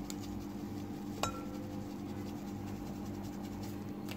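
A single short clink about a second in, the sieve knocking against the glass mixing bowl while flour is sifted in, with a brief ring after it. A steady low hum runs underneath, with a few faint light taps.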